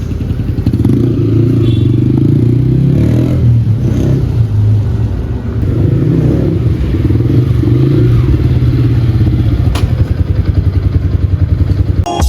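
Motorcycle engine running close by, its pitch rising and falling as it is revved, with an even rapid pulsing toward the end as it settles.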